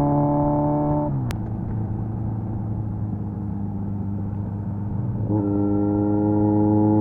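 Kawasaki Z900's 948cc inline-four through an SC Project exhaust, running steadily under way. About a second in the engine note drops and a single sharp click is heard, and it runs lower and quieter. About five seconds in the pitch steps back up and slowly rises as the bike pulls again.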